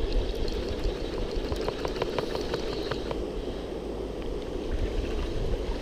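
Steady rush of a fast-flowing river, with a scatter of faint light clicks about one to three seconds in.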